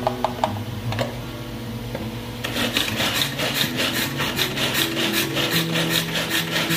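A manual pull-cord vegetable chopper crushing green chillies. A few clicks come as the lid goes on, then from about two and a half seconds in the cord is pulled again and again, giving a quick rhythmic rasping whir of about four strokes a second as the blades spin.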